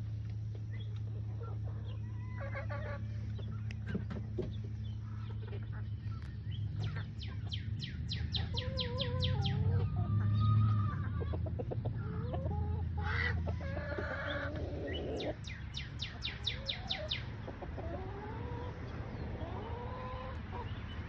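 Birds calling outdoors: two runs of quick, evenly repeated notes and several short gliding calls, over a steady low hum.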